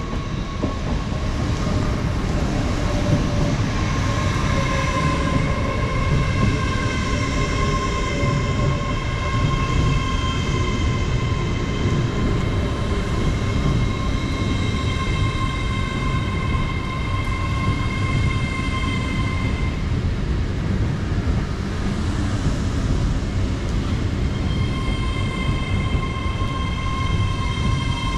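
Hitachi Azuma passenger train running along the platform: a continuous rumble of wheels on rails with a steady high whine in several tones. The whine fades about twenty seconds in and returns near the end.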